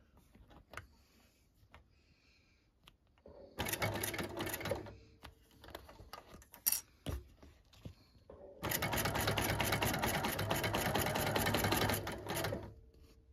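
BERNINA sewing machine with a roller foot stitching clear vinyl to a fabric zipper gusset. A short burst of stitching comes about three and a half seconds in, then a few clicks, then a steady longer run of rapid stitching from about nine seconds until shortly before the end.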